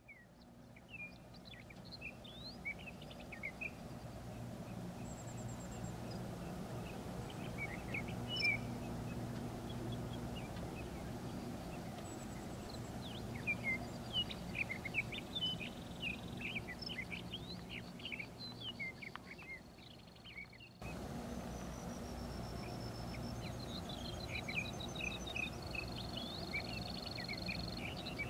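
Songbirds chirping and trilling in open sagebrush grassland, many short calls, over a steady low mechanical hum in the background.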